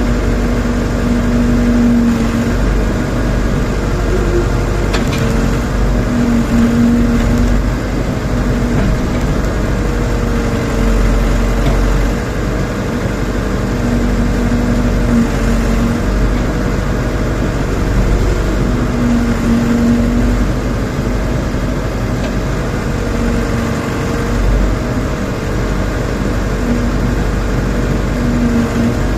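Rondon backhoe loader's diesel engine running steadily under work, with a pitched whine from the machine that rises and fades several times.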